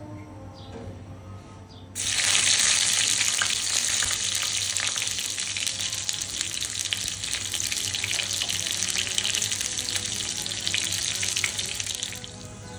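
Dry red chillies and garlic sizzling in hot oil in a pan, a loud hiss with crackles that starts suddenly about two seconds in and drops away near the end. Soft background music underneath.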